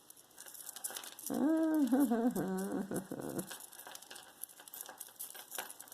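A woman's drawn-out, wordless groan of frustration over a stubborn tangle, falling in pitch towards its end. Small clicks and rustles from jewelry being handled run underneath.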